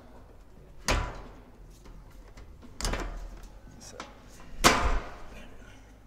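Three clunks of a distribution board's front cover being pushed into place, about two seconds apart, the last one loudest.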